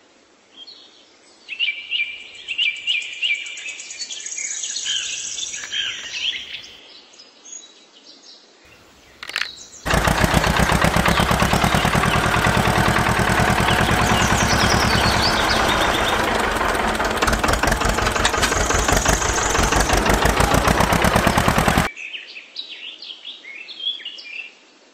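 Birds chirping, then a tractor engine running with a loud, rapid, even beat for about twelve seconds before it cuts off, leaving the birds chirping again.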